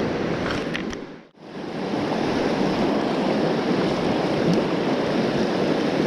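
Mountain stream rushing over rocks, a steady wash of running water. It drops out for a moment about a second in, then carries on as before.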